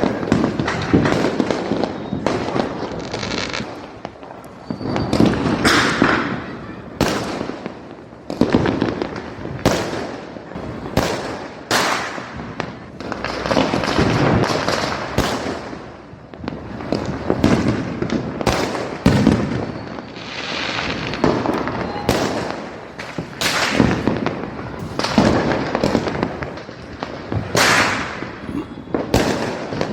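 Firecrackers bursting in quick, irregular succession: loud sharp bangs, several a second at times, over a continuous crackle.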